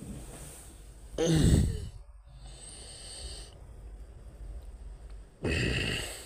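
A man sighing twice: a voiced sigh with falling pitch about a second in, and a breathier one near the end.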